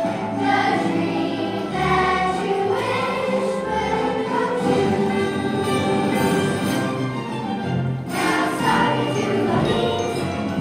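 A children's cast singing together as a chorus over musical accompaniment, a stage-musical number. The music breaks off briefly about eight seconds in and then carries on.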